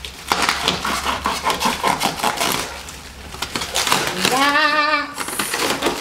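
Black plastic wrapping crinkling and crackling as it is cut and pulled off with a knife, a dense run of small crackles over the first four seconds. A short wavering vocal note follows about four seconds in.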